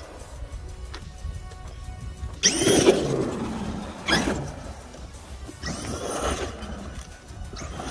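Background music, with four short rising-and-falling whines of a Traxxas E-Revo RC truck's brushless electric motor as it accelerates and slows; the loudest comes about two and a half seconds in.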